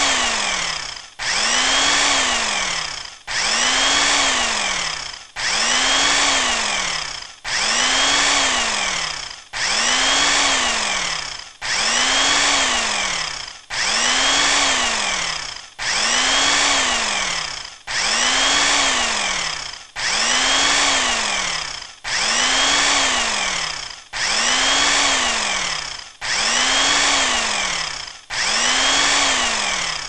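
Bandsaw cutting wood, a short sound-effect sample looped over and over: each pass starts abruptly with a motor whine that rises and then falls in pitch, fades, and cuts off, repeating about once every two seconds.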